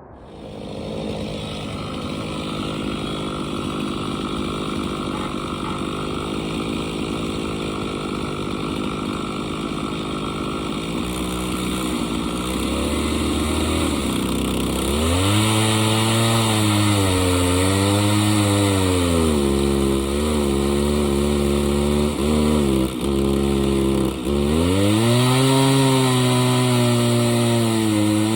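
Two-stroke Stihl chainsaw on an Alaska chainsaw mill running hard as it rips a log lengthwise into boards. It comes in loudly at the start; from about halfway on the engine note sags and recovers several times as the bar loads up in the cut.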